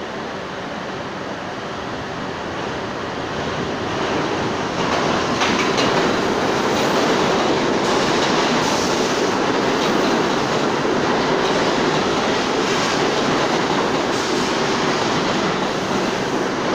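New York City subway train running alongside the platform, its wheels rumbling on the rails with a clacking over the rail joints. It grows louder over the first five seconds as the train comes in, then runs on steadily.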